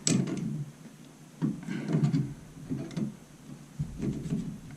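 A brass toilet shutoff valve being turned on its threaded pipe fitting: four short bursts of metal handling and scraping, the first starting with a sharp click.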